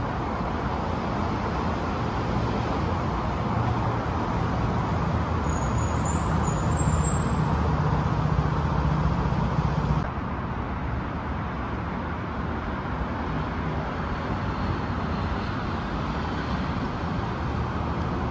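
A motorcycle engine running, growing louder as the bike approaches through a covered car park, then cutting off suddenly about ten seconds in. After that comes the steady, quieter noise of street traffic.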